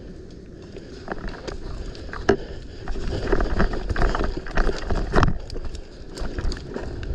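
Irregular knocks, scuffs and rustles from a player's own movement and gear, with wind buffeting the camera microphone. They grow busier and louder from about three seconds in, then ease off near the end.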